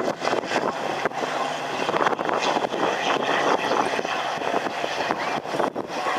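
Race cars' engines running at speed around a circuit, the engine note rising and falling.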